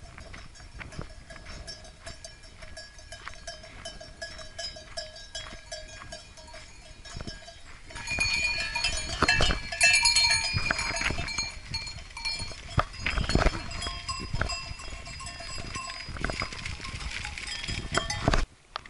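Bells worn by a flock of sheep clanking and ringing, with scattered knocks and steps on a stony track. The ringing grows much louder about eight seconds in as the flock passes close, and stops abruptly near the end.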